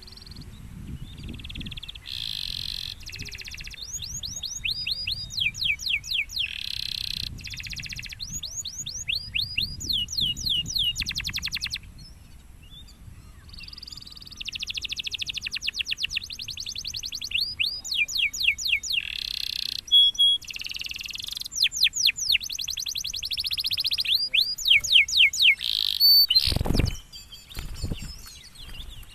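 Domestic canary singing: long rolling trills and runs of quick, high falling whistled notes, broken by a short pause about halfway through. A single loud thump near the end.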